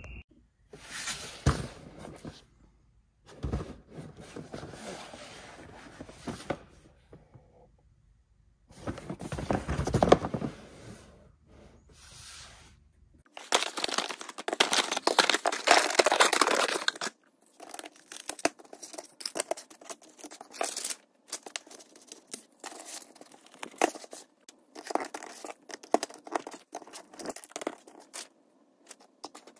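Bursts of rough, rumbling noise from a toy RC monster truck running over concrete pavers. About halfway through, a cardboard box is opened and its packaging torn and crinkled. Then comes a long run of sharp clicks and taps as plastic toy playset pieces are handled and fitted together.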